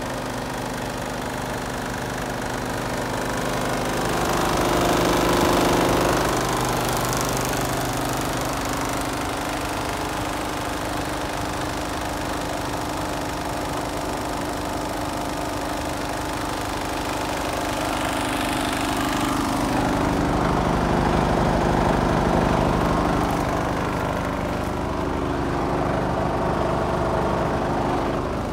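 Mercedes-Benz Actros 2545's 450 bhp Euro 6 diesel straight-six idling steadily, growing louder for a few seconds twice.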